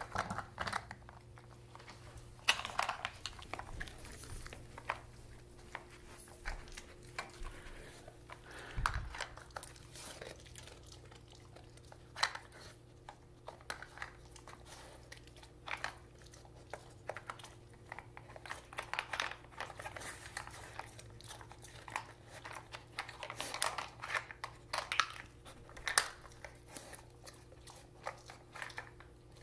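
A German Shepherd working a plastic treat-puzzle feeder: irregular clicks and clatters as its nose pushes and flips the plastic lids and sliding bone pieces, mixed with the crunch of the dog chewing the treats it finds.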